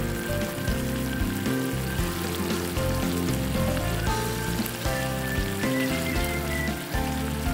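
Tomato and ground-meat sauce sizzling and bubbling in a frying pan, over background music of steady chords.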